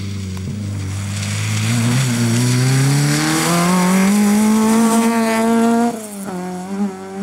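Peugeot 306 rally car engine accelerating hard: one engine note climbs steadily in pitch for several seconds, then drops sharply about six seconds in as the driver lifts or shifts, stuttering briefly before settling into a steadier note.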